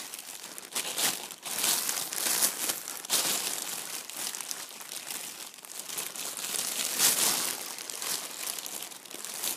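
Thin white plastic carrier bag crinkling and rustling as it is handled and opened, in uneven crackles that come and go.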